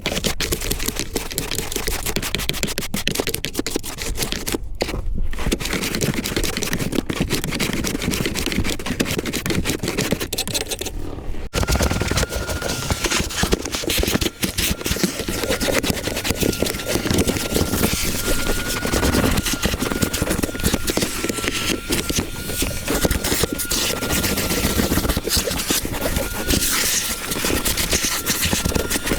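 A small motor-driven tool running with dense rattling, scraping noise. About twelve seconds in, a steady motor whine joins it and holds.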